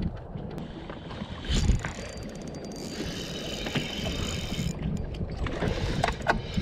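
Wind rumbling on the microphone and water against a fishing boat, with a thump about a second and a half in. Over it runs a thin whir with fine regular ticks from a spinning fishing reel.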